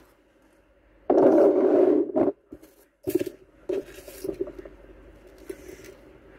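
Hands handling small items: a loud scraping rustle about a second in that lasts about a second, then a run of light clicks and taps as small plastic pieces and a keychain are picked up and moved.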